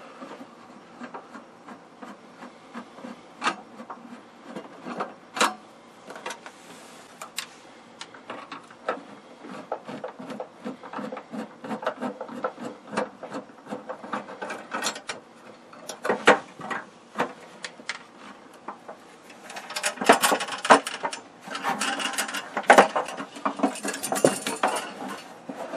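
Screwdriver backing out the Phillips screws on the steel band that clamps a Predicta television's CRT cover: faint scattered clicks and small metal-on-metal scrapes. From about twenty seconds in come louder, denser clatter and rubbing as the loosened steel band and plastic shell are handled.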